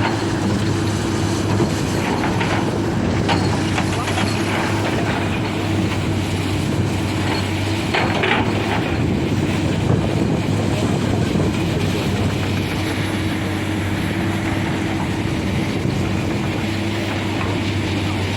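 Diesel engine of heavy earthmoving equipment running steadily at a constant pitch, with a few brief clanks or scrapes about a third of the way in and near the middle.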